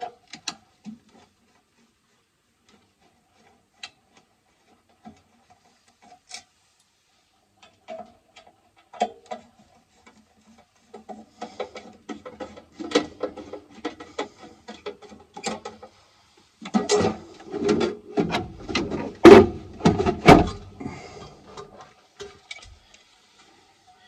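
Clicks, knocks and rattles of an old DA Abacus alarm control panel's cover being undone and taken off the wall-mounted box. Scattered single clicks at first, then busier handling that gets loudest about two-thirds of the way in.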